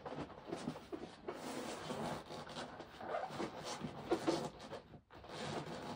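Gi pants rustling and rubbing as they are rolled up and worked bit by bit onto a grappling dummy's leg, in irregular scuffs with a short pause just after five seconds.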